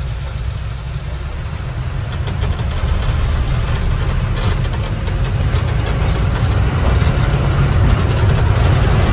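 Heavy truck's diesel engine running and road rumble heard from inside the cab, driving over a rough, potholed dirt road. Light clicks and rattles come through in the middle, and the rumble grows gradually louder.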